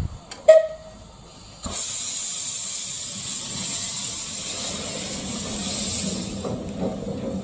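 A sharp knock about half a second in, then steam from the 15-inch-gauge tank locomotive Wroxham Broad starts hissing suddenly about two seconds in and keeps up a steady high hiss, easing near the end.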